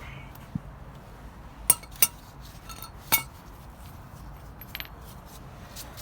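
Metal clinking and knocking as a brake caliper carrier is worked off a car's front wheel hub. There are three sharp clinks near the middle and a few fainter ticks.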